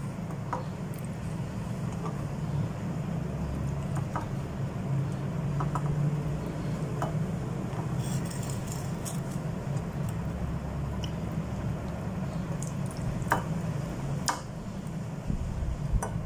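A steady low hum, with scattered soft wet squelches and light clicks as marinated chicken pieces are pulled from the marinade in a glass bowl and laid on a plate.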